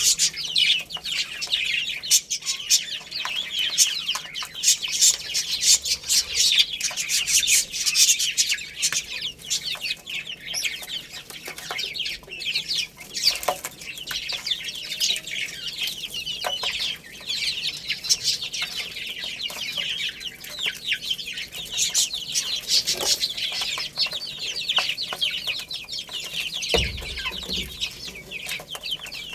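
A brood of baby chicks cheeping: many high-pitched peeps overlapping without a break. A brief low thump comes near the end.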